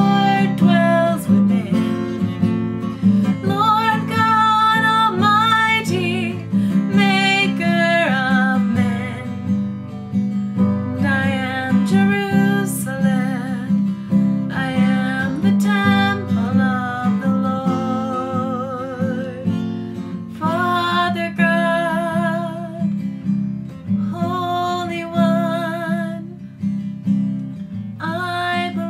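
A woman singing with vibrato while strumming a steel-string acoustic guitar, her sung phrases broken by short pauses in which the guitar carries on.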